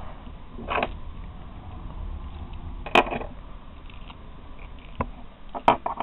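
Small metal gear being handled: a short rustle about a second in, a sharp click near the middle and a few more clicks near the end, as the flint and steel is brought out.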